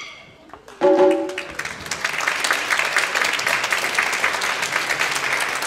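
Audience applauding at the end of a taiko drum performance: a brief loud shout about a second in, then sustained clapping.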